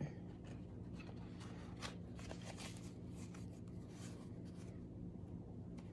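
Faint rustling and light clicks of tarot cards sliding against each other as the deck is handled and spread apart in the hands, over a low steady hum.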